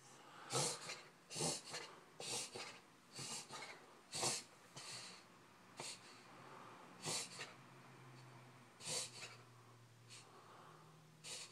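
A puggle's noisy, laboured breaths during one of its breathing-problem episodes: a breath about once a second at first, then further apart towards the end.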